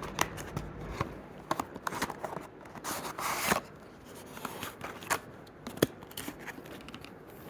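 A Hot Wheels car's blister package, plastic bubble and card, being opened by hand: irregular crackling and clicking of plastic and cardboard, with a longer crinkling burst about three seconds in.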